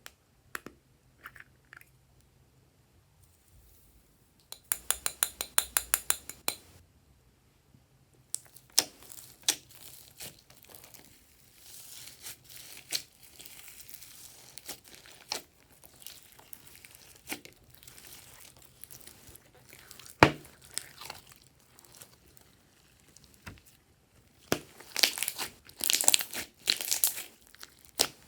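Hands squishing and stretching glossy slime: a quick run of about fifteen small pops a few seconds in, then scattered sticky clicks and crackles that grow denser near the end.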